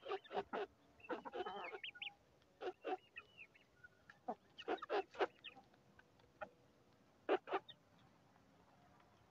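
A flock of chickens feeding on bare ground: a scattered run of short, sharp pecking taps and clucks, with chicks giving short arched peeps now and then. The sounds thin out near the end.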